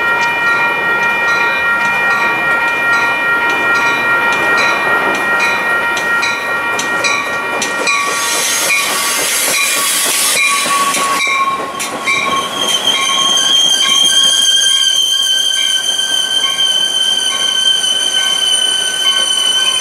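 Metra bi-level commuter train pulling into a station cab car first, while a grade-crossing bell rings steadily, about one and a half strikes a second. A loud rush as the cab car passes about eight to eleven seconds in, then a high, steady squeal from the train as it slows.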